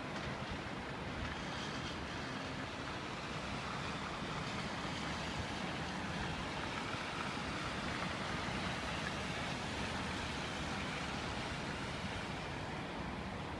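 Steady hiss and rumble of distant city traffic, even throughout with no distinct events.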